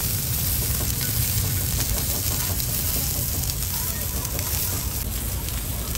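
Pork belly sizzling as it grills, with a steady low rumble underneath.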